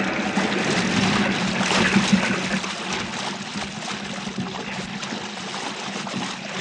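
Radio-drama sound effect of a huge wave breaking over a small boat: rushing, splashing sea water that slowly dies away.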